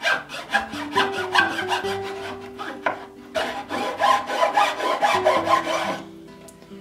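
A hand file rasping back and forth on wood in the mouth of a Union transitional plane's wooden body, about three strokes a second, opening up and squaring the corner of the mouth so the blade can pass; the strokes stop about six seconds in. Guitar music plays underneath.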